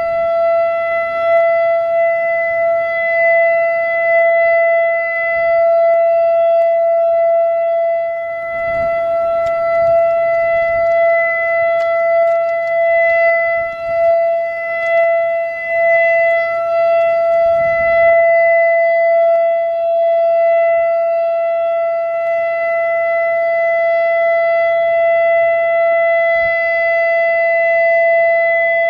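American Signal Corporation E-Class EC4 outdoor tornado siren sounding a steady alert tone on its scheduled test: one held pitch that never glides, swelling and dipping slightly in loudness.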